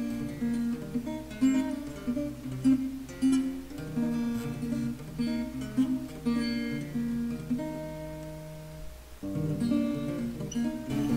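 Music: an acoustic guitar playing a run of plucked and strummed notes, thinning briefly about nine seconds in before carrying on.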